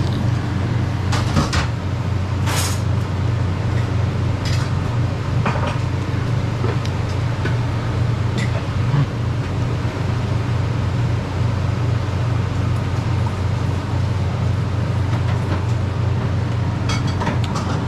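A steady low hum of background noise, with a few light clicks and knocks of eating utensils against a bowl.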